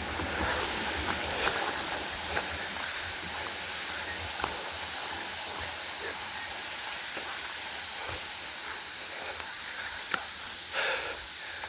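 A steady, high-pitched insect drone, like cicadas, over a low rumbling hiss, with a few faint clicks.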